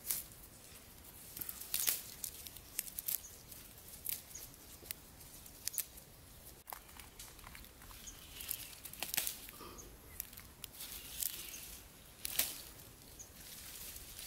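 Leafy vine being picked by hand: irregular sharp snaps of stems and leaves breaking off, with rustling of the foliage.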